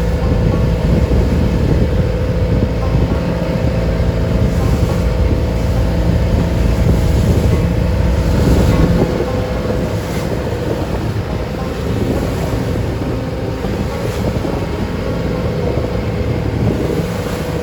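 Engine of a wooden passenger boat running steadily at sea, with wind blowing on the microphone and the wash of water around the hull swelling now and then.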